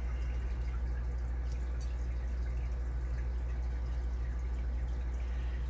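Steady low electrical hum, with a few faint light ticks from small metal lock parts being handled.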